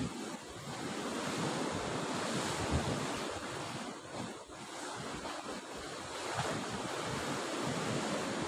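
Sea surf breaking and washing along a rocky shore, swelling and easing, with gusts of wind buffeting the microphone.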